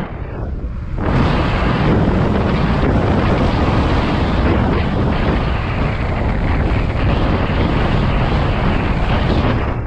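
Wind rushing over a helmet-mounted camera's microphone on a moving electric scooter. It is a loud, steady roar that jumps up about a second in.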